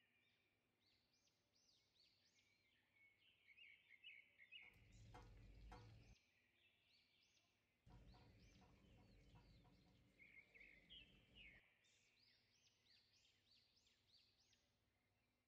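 Faint birdsong: small birds calling over and over in short rising-and-falling chirps. A low rumbling noise comes in twice, about five seconds in and again from about eight to eleven seconds.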